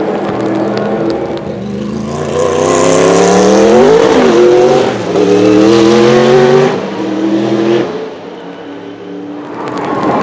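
Sauber-Mercedes C11's 5.0-litre twin-turbo V8 racing engine accelerating hard as the car passes, its note climbing in pitch. The note dips briefly about five seconds in, then falls away and fades, and an engine note rises again near the end.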